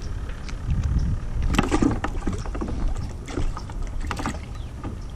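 A steady low rumble with a few short knocks and rustles of handling, the strongest about a second and a half in.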